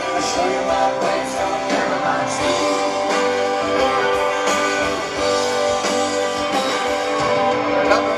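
A live band playing through a concert PA, with guitars to the fore.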